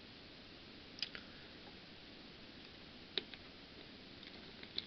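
A few faint, sharp clicks and light taps as small parts are handled: a metal 3.5 mm jack, tweezers and a plastic tester case. There are about three distinct clicks a second or two apart, over a low steady hiss.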